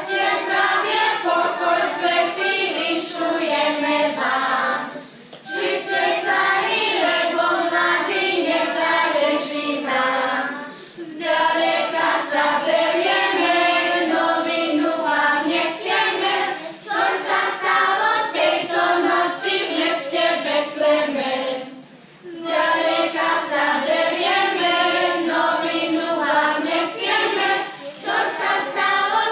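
Children's choir singing together, with women's voices among them, in long phrases broken by short pauses about five, eleven and twenty-two seconds in.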